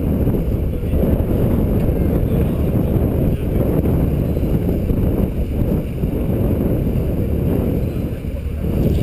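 Wind buffeting the microphone: a steady, loud, low rumble with no clear engine tone.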